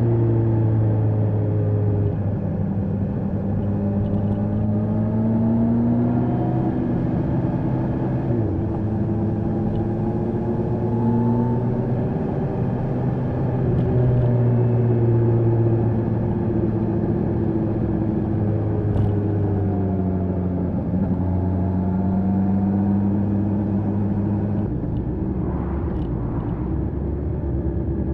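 Kawasaki H2 SX SE's supercharged inline-four with an Akrapovic exhaust, under way on the road. The engine note climbs and falls several times, with sharp drops about eight seconds in and again about twenty-one seconds in.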